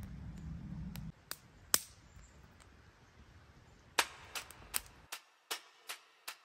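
A low rumble that cuts off about a second in and two lone sharp clicks, then from about four seconds an evenly spaced series of sharp percussive clicks, a little over two a second: the beat of music starting.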